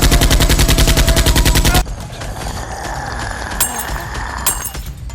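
A rapid burst of automatic gunfire, evenly spaced shots at about a dozen a second, that cuts off abruptly about two seconds in. A quieter steady hiss follows, with two sharp clicks.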